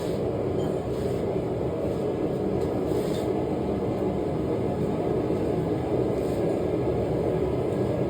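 Small forge firing steadily: a constant low rushing noise, with a couple of faint light clinks, about three and six seconds in.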